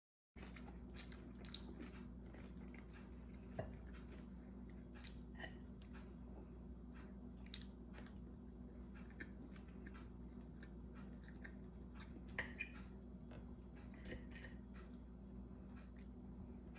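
A man chewing mouthfuls of corn chip salad, with scattered soft crunches of Fritos corn chips and lettuce, over a steady low hum.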